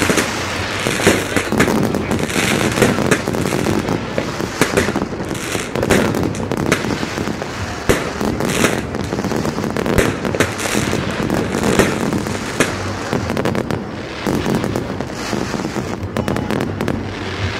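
Fireworks display: aerial shells bursting in a rapid, irregular run of bangs and crackling with no pauses.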